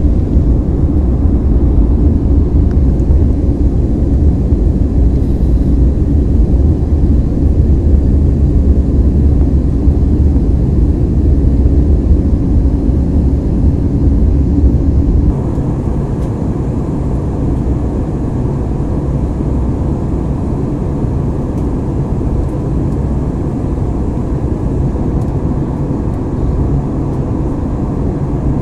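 Airbus A320neo engine and airflow noise heard from a cabin seat beside the wing during the climb after take-off: a loud, steady, deep drone. About fifteen seconds in the low rumble drops suddenly and the noise turns quieter and thinner.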